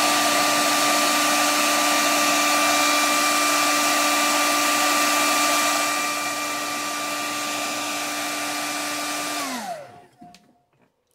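Hand-held hair dryer blowing hot air with a steady whine over the rush of air, a little quieter about six seconds in. Near the end it is switched off and the whine falls in pitch as the motor spins down.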